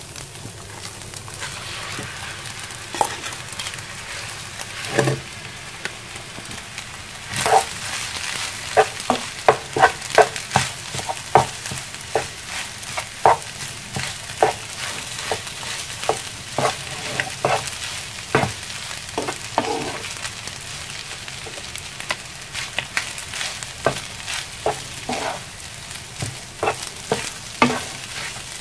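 Rice and egg sizzling in a granite-coated nonstick frying pan as they are stir-fried for fried rice. A steady sizzle runs under frequent taps and scrapes of a spatula against the pan, coming thick and fast from about a quarter of the way in.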